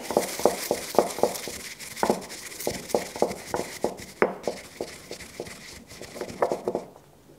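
Stone pestle working dried basil leaves in a stone mortar: a run of short grinding and tapping strokes at an uneven pace of about three a second, stopping about seven seconds in.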